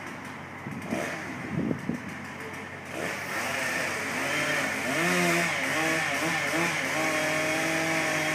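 Chainsaw revved up about three seconds in, its pitch wavering up and down for a couple of seconds and then held steady at high revs.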